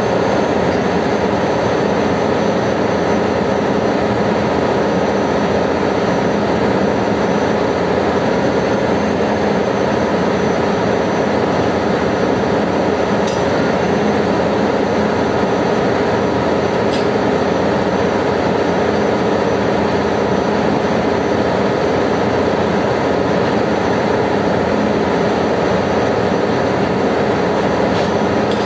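Loud, steady machinery din of a ship's engine room, a constant noise with a few steady hums running through it. A few faint clicks are heard now and then.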